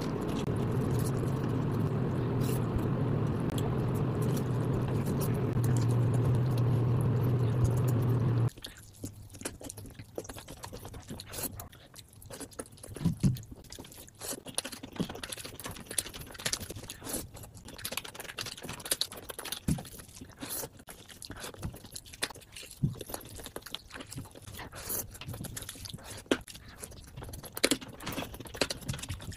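A steady low hum for about the first eight seconds, which cuts off suddenly; after it, close-miked eating sounds: chewing and lip-smacking on rice and mutton eaten by hand, with many short wet clicks.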